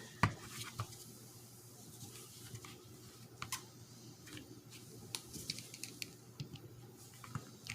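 Scattered light clicks and taps of plastic shift-cable clips and shifter parts being handled, the sharpest just after the start.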